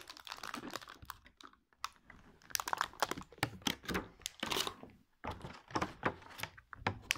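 Crinkling and rustling of plastic toy packaging mixed with light clicks and taps of small plastic Super Zings figures being handled, in irregular spells with short pauses.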